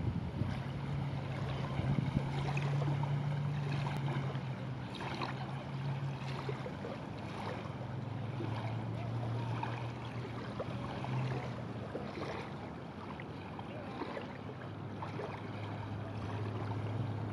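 Small waves lapping on open water, with scattered light splashes, over a steady low hum that drops slightly in pitch a couple of times.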